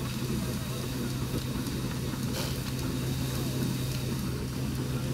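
Threshing machinery running with a steady low hum, with a single brief click about halfway through.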